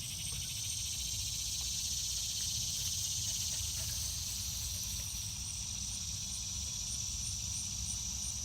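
Summer insect chorus: a steady high-pitched buzz with a short chirp repeating about three times a second above it, over a low rumble.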